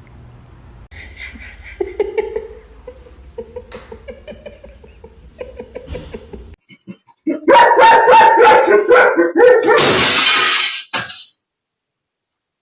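A dog vocalizing: first a run of wavering, pitched whines, then, after a short break, a much louder, harsh, distorted stretch of dog noise that stops about a second before the end.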